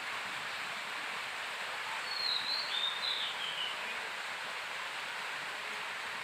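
Steady outdoor background hiss, with a short high, wavering chirp of a bird call about two seconds in.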